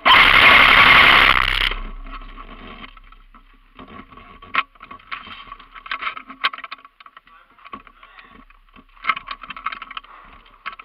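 A loud rushing burst of noise for the first couple of seconds, then boots scuffing and crunching over grit and broken debris on a concrete floor, irregular steps with sharp little clicks of stones.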